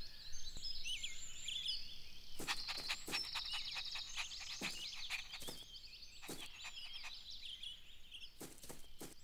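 Soft outdoor ambience of small birds chirping in short, quick rising and falling calls, with a fast buzzy insect-like trill a couple of seconds in and scattered faint clicks.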